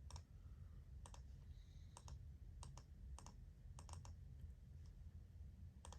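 Faint computer keyboard typing: a dozen or so irregular keystroke clicks, over a low steady hum.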